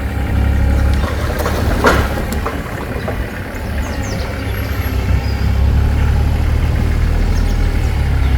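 A machine's engine running steadily, with a single sharp crack about two seconds in.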